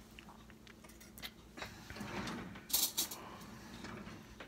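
A metal can of condensed soup being handled on a glass-top stove: a few faint clicks, then one short, bright metallic clink a little under three seconds in.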